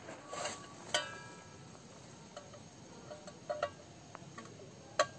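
A small metal container being handled: a soft rustle, then a sharp clink about a second in that rings briefly. A few light taps follow, and another sharp click comes near the end.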